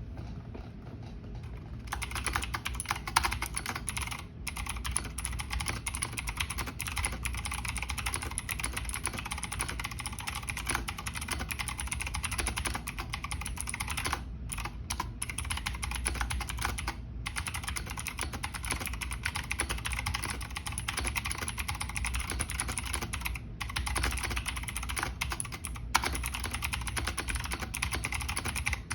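Fast, continuous typing on a Razer BlackWidow V3 Mini mechanical keyboard with clicky Razer Green switches: a dense stream of key clicks starting about two seconds in, with a few brief pauses.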